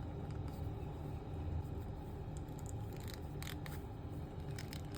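Faint clicks and light scraping of hard plastic parts as a 1/6 scale action figure is handled and its face plate swapped. A few short clicks fall in the middle, over a steady low room hum.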